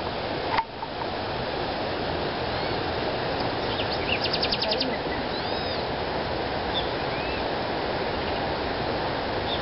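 Birds calling over a steady rushing background noise: a few short chirps that rise and fall, and a quick trill of about eight notes near the middle.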